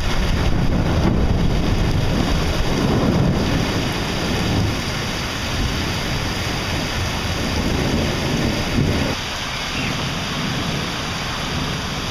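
Heavy rain pouring down onto a paved street: a steady, dense hiss with a deep rumble underneath, a little quieter after about nine seconds.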